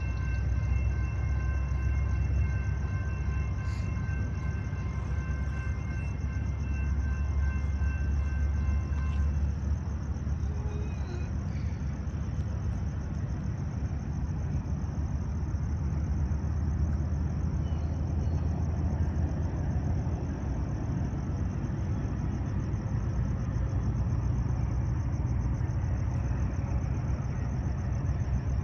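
Low, steady rumble of a distant approaching Amtrak passenger train, over a constant high chirring chorus of night insects. A steady high ringing tone stops about nine seconds in.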